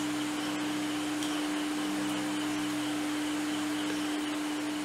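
A steady, even hum held at one low pitch without change, with a couple of faint ticks about half a second and a second in.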